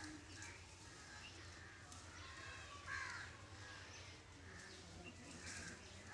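Crows cawing, faint and scattered, with one louder call about three seconds in.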